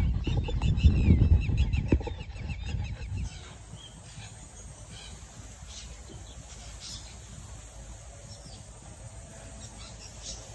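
Outdoor rural ambience: a loud, uneven low rumble on the microphone with rapid high chirping for the first three seconds, then much quieter, with faint scattered high clicks.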